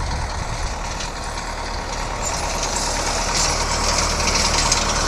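Tractor diesel engine running steadily, a low hum, under a hiss that grows louder over the second half.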